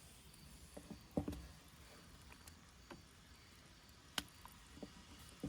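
Quiet background with a few scattered knocks and clicks: a dull knock about a second in, a sharp click about four seconds in, and fainter taps in between.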